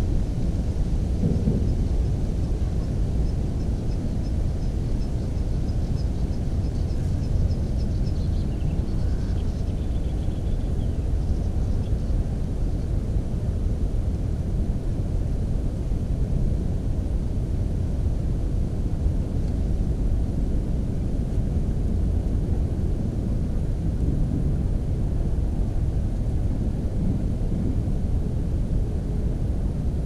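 Wind buffeting the microphone: a steady low rumble. A faint, thin, high trill sounds during the first several seconds.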